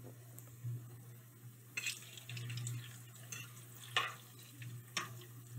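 A utensil scraping and clicking against a frying pan a few times as plantain slices are turned in hot oil, over a steady low hum.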